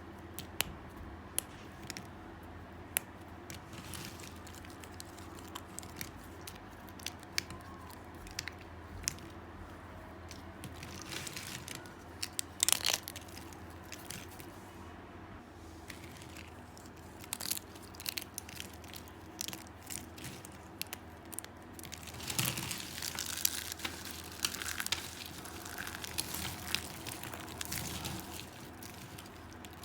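Dry soap being cut into little pieces: sharp, crisp crunches and clicks at irregular intervals. Denser runs of crunching come about twelve seconds in and over several seconds towards the end.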